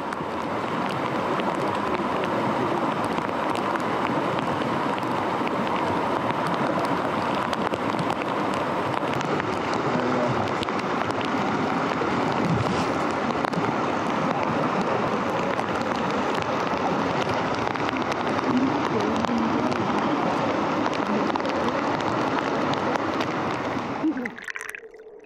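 Steady rush of a fast-flowing creek in spate, mixed with rain pattering, possibly on umbrellas; it cuts off abruptly near the end.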